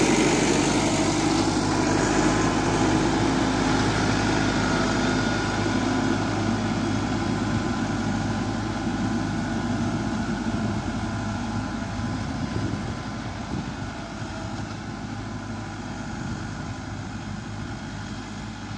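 Massey Ferguson 385 tractor's diesel engine running steadily under load as it pulls a cultivator through the soil, growing fainter as the tractor drives away.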